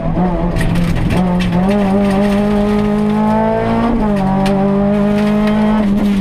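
Renault Mégane rally car's engine heard from inside the cabin, running hard at high revs along the stage, with a gear change about four seconds in.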